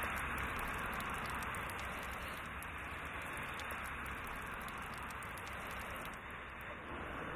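Liquid liposuctioned fat streaming from a slit plastic bag into an enamel pot: a steady, even trickling hiss.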